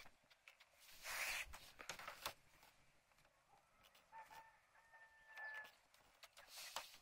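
A rooster crowing faintly, one drawn-out call about four to six seconds in. Around it, brief rustling and soft clicks from hands handling crossbow string close by.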